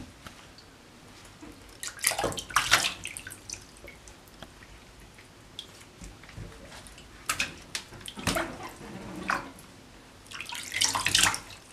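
Water splashing and dripping in a bathtub as hands wash a wet kitten, in three short spells with quiet between.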